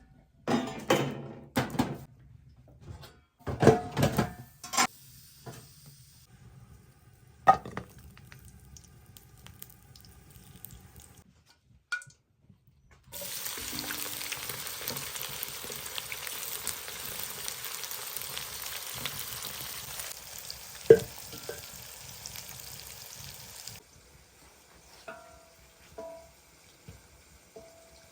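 Cooking sounds from pots and utensils: a run of clanks and knocks, then a steady hiss for about ten seconds that starts and stops abruptly, with one sharp knock partway through.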